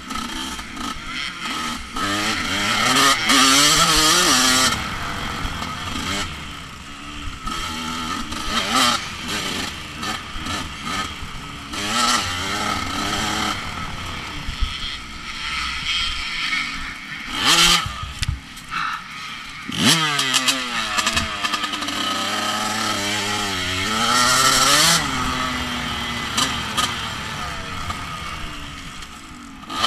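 Off-road racing motorcycle engine, heard up close, revving up and falling back again and again as the rider accelerates and backs off through the course, with several loud rushes of noise along the way.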